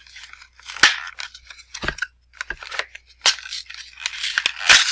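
A cardboard box being pried and torn open by hand: irregular scraping, tearing and crackling, with a sharp crack about a second in and louder tearing near the end as the box resists.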